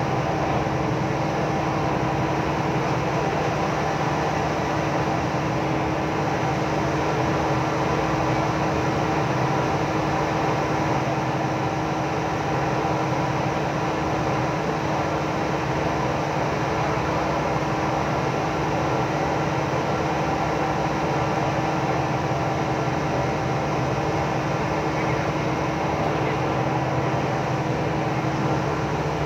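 Crew boat's onboard machinery running steadily: an unchanging drone with a low hum and a few steady tones.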